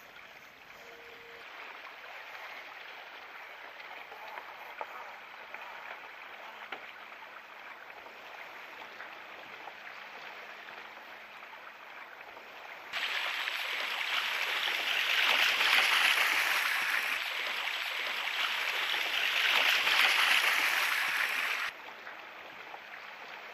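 Water lapping and gurgling close to the microphone, a steady hiss with small splashy ticks. About halfway through a much louder rushing noise starts suddenly, swells twice and cuts off just as suddenly.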